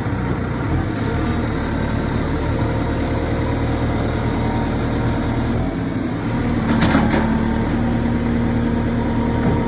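Diesel engine of a JCB 3CX backhoe loader running steadily. About seven seconds in there is a short hiss, and a steady whine then joins the engine sound.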